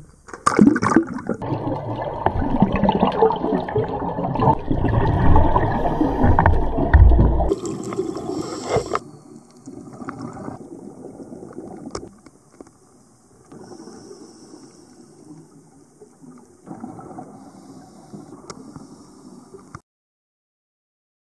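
Sea water sloshing and splashing over a camera held at the surface, loud for about seven seconds. It then gives way to quieter, muffled underwater sound with gurgling bubbles. The sound cuts out to silence a little before the end.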